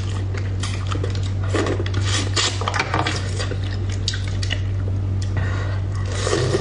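Close-miked eating sounds: wooden chopsticks clicking against a ceramic bowl and picking through saucy braised fish, with wet chewing, over a steady low hum.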